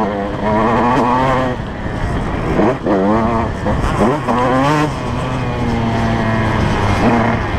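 Off-road motorcycle engine revving hard, its pitch climbing and dropping several times through the first few seconds and running steadier toward the end, over wind rushing past the microphone.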